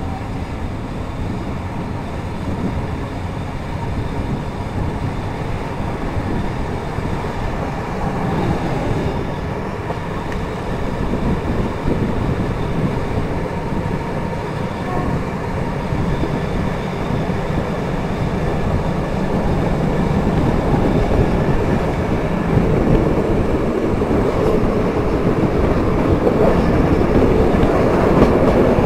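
Passenger train pulling out and gathering speed, heard from an open carriage window: running noise and wheels on the rails, growing steadily louder as it speeds up.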